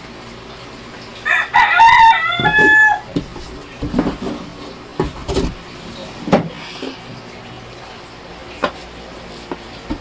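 A rooster crowing once, about a second in, for roughly two seconds. It is followed by several short knocks and clatters from a cardboard box and its contents being handled.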